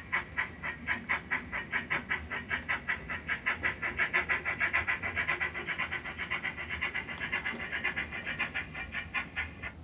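Model GWR pannier tank steam locomotive running on DCC, its sound decoder giving a steady steam chuff at about five beats a second.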